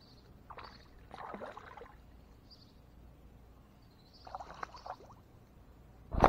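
Kayak paddle strokes splashing and dripping in the water, two brief bouts. Near the end comes a much louder thump with a rustle and rumble.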